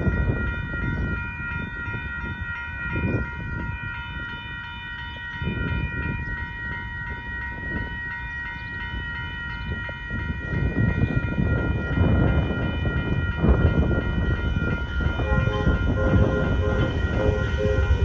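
Railroad crossing bells ringing steadily while an approaching diesel passenger train rumbles in, growing louder from about ten seconds in. Near the end the train's horn sounds in short, evenly repeated blasts.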